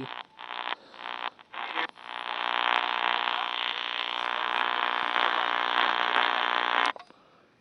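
AM radio receiver tuned to the 1350 AM channel: choppy, broken audio, then a steady harsh buzz of interference for about five seconds that cuts off suddenly.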